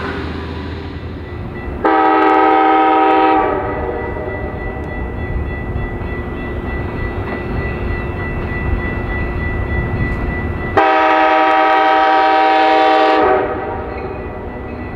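Approaching Metra commuter train's locomotive horn sounding two blasts, a short one about two seconds in and a longer one about eleven seconds in, each a chord of several notes, over the steady rumble of the train.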